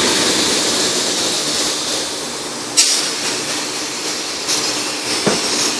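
Gravity-feed compressed-air paint spray gun hissing steadily as it sprays red paint, with one sharp click a little under three seconds in.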